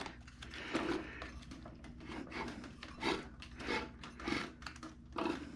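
A run of short rubbing or scraping strokes on engine parts, roughly one every half second to a second, as the engine is worked on by hand.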